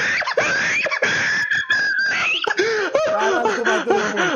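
People's voices without words: a long, high, wavering cry in the first half, then a quick run of laughter in the second half.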